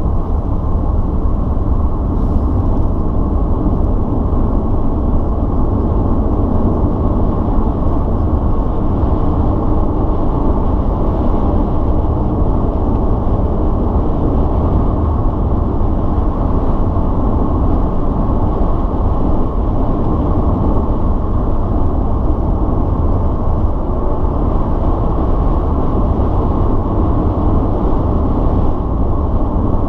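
Steady in-cabin sound of a V6 car cruising at highway speed: an even engine drone mixed with tyre and road noise, with no revving.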